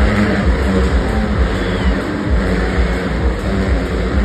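Several stunt motorcycles riding inside a steel-mesh globe of death, their engines running at high revs in a steady, dense drone.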